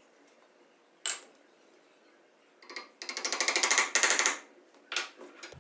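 Claw hammer tapping nails into a glued wooden butt joint. A single tap about a second in, a couple more near the middle, then a fast flurry of light taps lasting over a second, and one more tap near the end.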